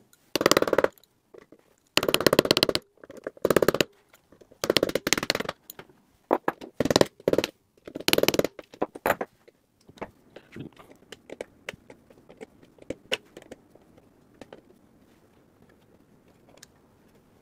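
Flathead screwdriver tip tapped against a triangle-head security screw in a metal chassis to knock it loose, in short rattling bursts of rapid metal-on-metal strikes. From about ten seconds in only fainter scattered clicks follow, dying away near the end.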